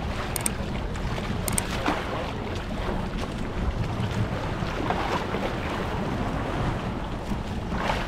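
Small fishing boat under way at sea, its motor running with a steady low rumble under wind buffeting the microphone, with water splashing against the hull now and then.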